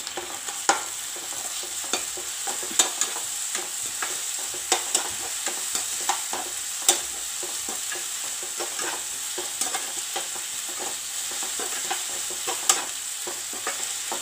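Sliced onions, green chillies and ginger-garlic paste sizzling in oil in a kadai, a steady frying hiss, while a perforated metal ladle stirs them, scraping and clicking against the pan at irregular moments.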